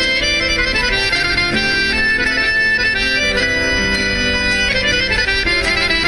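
Instrumental Black Sea folk music with no singing: a melody of held notes over a steady accompaniment.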